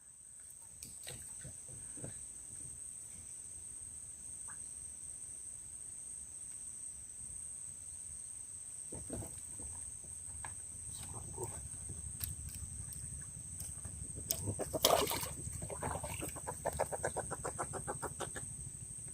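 A bird calling, with a rapid run of evenly spaced notes near the end, over a steady high-pitched tone and a few scattered clicks.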